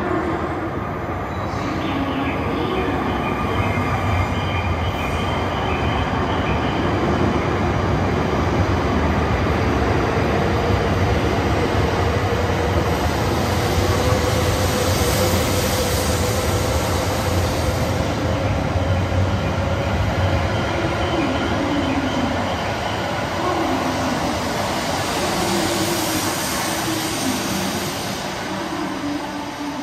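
A Shinkansen bullet train running at an underground station platform: a steady rumble of running noise, with a whine that slowly rises in pitch through the middle.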